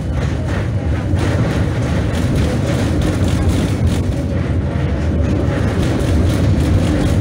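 Running noise of a moving tram: a steady rumble of steel wheels on the rails and the running gear, with a light clatter, getting a little louder about a second in.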